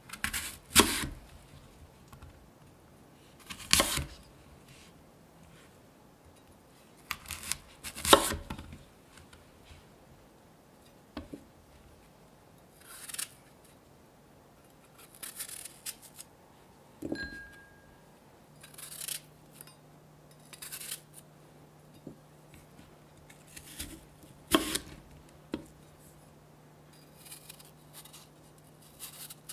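A kitchen knife cutting through crisp raw apples, with sharp crunches and knocks on a wooden cutting board, the loudest about a second in, near four and eight seconds, and once more late on. Between them, softer scraping and crunching as the knife cores and peels apple wedges held in the hand.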